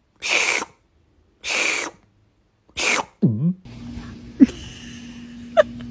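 Three short sneeze-like bursts, each about half a second, then a quick swooping glide that drops and rises again. After that, over a steady hum, a puppy gives two brief high whimpers.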